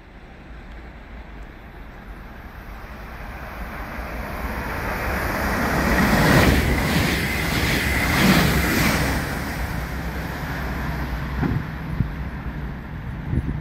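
Green double-deck electric multiple unit approaching and passing along the platform. A rumble of wheels on rails builds up, peaks midway with a high steady whine and some clicks, then fades as the train moves away.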